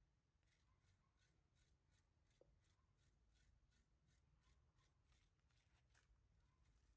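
Near silence: faint, regular ticking about three times a second over a low background hum.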